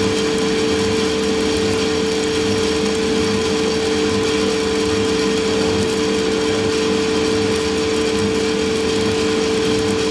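Santoker R6 drum coffee roaster running with a steady hum, with the beans crackling densely through it like burning firewood: the coffee is in second crack.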